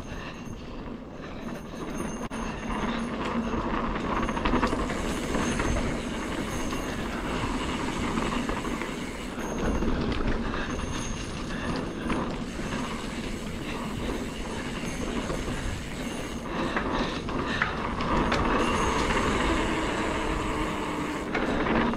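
Mountain bike riding along a dirt trail: knobby tyres rolling on dirt, and the chain and frame rattling over bumps, in a steady clatter with wind rumbling on the helmet or bike camera's microphone.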